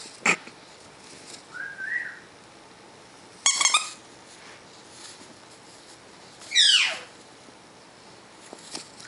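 Sun conure calling as it plays: a short sharp chirp at the start, a soft rising whistle around two seconds, a loud harsh squawk about three and a half seconds in, and a loud screech falling steeply in pitch near seven seconds.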